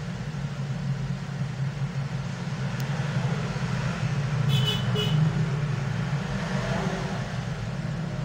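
Steady road-traffic noise, a low continuous hum with a hiss above it, and two short high beeps in quick succession about halfway through.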